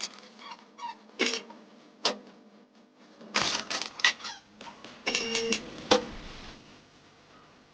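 Irregular metallic clinks and clanks of tools and parts being handled during engine removal, with a few sharp knocks; two of them, about five seconds in, ring briefly.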